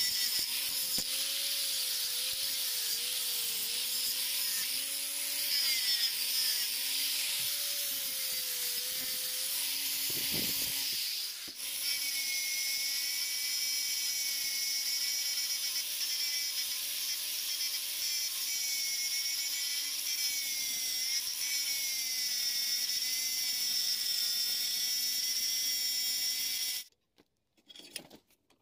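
Angle grinder with a thin abrasive disc grinding a metal piece clamped in a vise, running steadily with a high whine. Its sound dips briefly about eleven seconds in, and it cuts off suddenly a couple of seconds before the end, leaving a few faint clicks.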